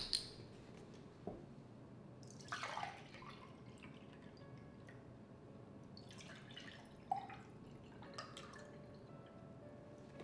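Juice poured from a carton into two drinking glasses, one after the other, with a short clink of glass at the start and a few soft knocks in between.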